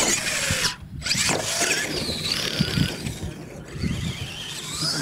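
Radio-controlled monster truck's motor and drivetrain whining, rising and falling in pitch as the throttle is worked, with a brief cut about a second in.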